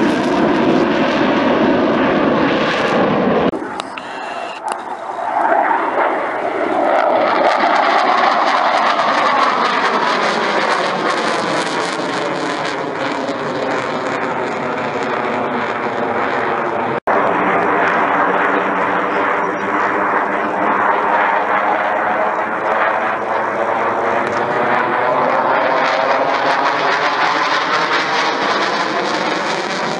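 Romanian Air Force MiG-21's afterburning turbojet engine running loud and continuous as the jet climbs and circles overhead. Its tone has a hollow phasing that sweeps down and back up as the aircraft passes. The sound breaks off for an instant a little past halfway.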